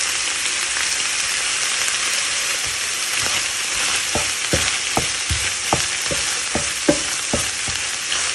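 Ground pork, breakfast sausage and chorizo sizzling in a nonstick frying pan with a tablespoon of soy sauce just added, stirred with a slotted wooden spatula. From about three seconds in, the spatula knocks and scrapes against the pan about twice a second over the steady sizzle.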